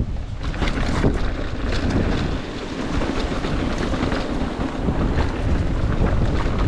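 Wind buffeting the microphone of a mountain bike rider's camera while riding, over steady tyre rumble on rock and dirt, with frequent short clicks and rattles from the bike over the bumps.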